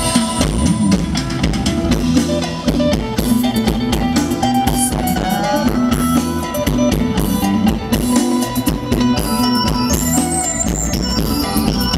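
Live band playing a Thai luk thung song: a drum kit keeping a steady beat under guitar and held instrumental notes.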